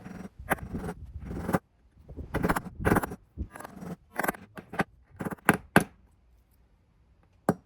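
Hammer blows on an old bearing used as a drift, driving a new rear drum bearing into a washing machine's tub: a series of irregular metallic knocks, with a pause about six seconds in and a strike near the end.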